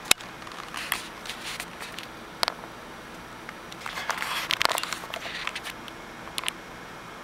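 Handling noise from a small handheld camera being moved about: scattered clicks and rustles, busiest about four to five seconds in, over a steady background hiss.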